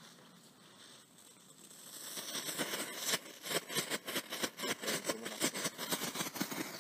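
A small Category 1 ground firework: a faint fuse hiss, then about two seconds in the firework goes off into dense, rapid crackling that grows louder and keeps going.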